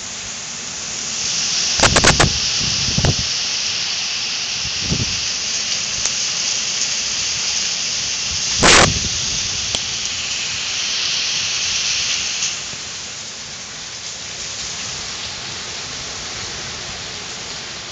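Hurricane rain and wind, a steady rushing that is heavier and hissier for the first twelve seconds or so, then eases. A few sudden loud thumps break through, the loudest about two seconds and nine seconds in.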